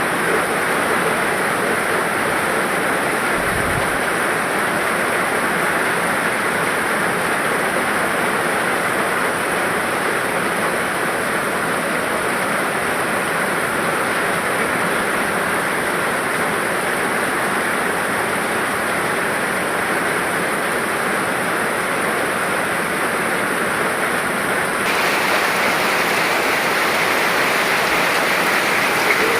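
Steady rainfall, an even hiss of rain with no gaps; about twenty-five seconds in it suddenly turns brighter and hissier.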